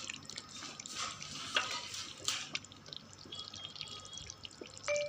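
Water trickling and dripping, with scattered small clicks.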